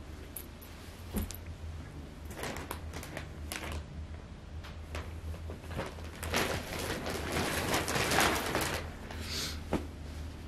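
Rustling and handling noise of clothes and fabric moved about close to the microphone, with a few sharp knocks, busiest and loudest about two-thirds of the way in, over a steady low hum.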